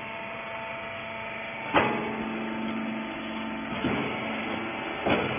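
Small hydraulic rag baler's motor and pump running with a steady hum, with three sharp knocks: a loud one about two seconds in, a softer one near four seconds, and another near the end.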